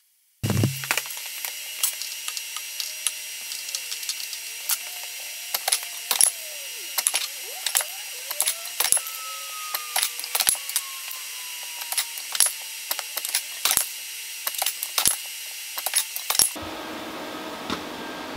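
CNC plasma cutter cutting steel plate: a steady hiss with many sharp clicks and crackles, starting with a low thump about half a second in. It stops abruptly near the end, leaving a steady low hum.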